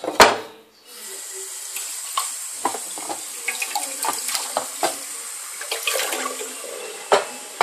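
Kitchen tap running into a stainless-steel sink and a pot, with splashing and small clanks. A loud knock comes just before the water starts about a second in, and another knock near the end.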